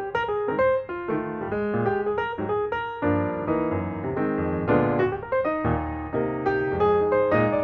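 Background piano music, a lively run of notes with chords.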